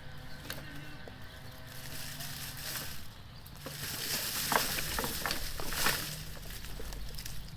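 Rustling and crackling of dead wood and leaves being handled or stepped through, with scattered sharp snaps, loudest in the second half. A faint steady hum stops about three seconds in.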